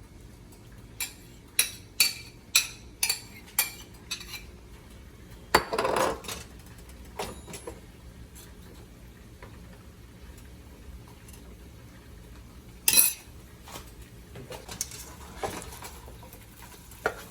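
Metal cutlery clinking against kitchen dishware: a run of sharp clinks about two a second for the first few seconds, then a louder knock and scrape around six seconds in, and another sharp clatter near the end.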